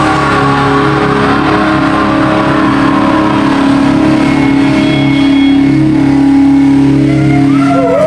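Distorted electric guitars and bass hold one chord and let it ring out as a steady drone at the end of a black metal song. The drone cuts off just before the end, as crowd shouts begin.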